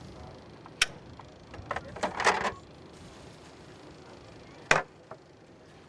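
A few sharp knocks and clicks of things being handled and stowed in a cockpit's center console: one just under a second in, a short cluster about two seconds in, and a single sharp knock near the end.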